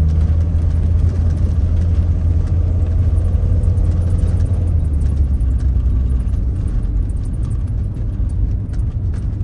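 Car driving along a road: a steady low engine and tyre rumble, easing a little about halfway through.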